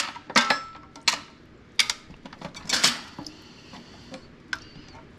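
Kitchen dishes and utensils clinking and knocking: about half a dozen separate clinks spread over a few seconds, one ringing briefly.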